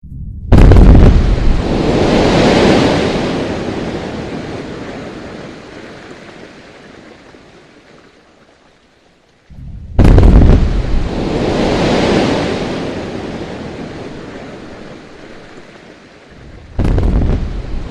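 Quarry blasting explosions: three blasts, each a sudden boom followed by a long rumble that dies away over several seconds, the second about ten seconds in and the third near the end.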